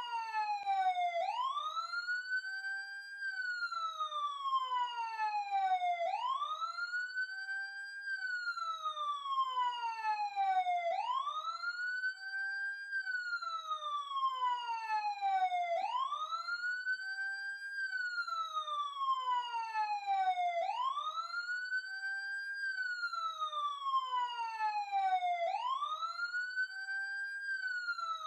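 Police siren on its wail setting: the pitch climbs in about two seconds, holds briefly at the top, then slides down over about three seconds, repeating evenly about every five seconds at steady loudness.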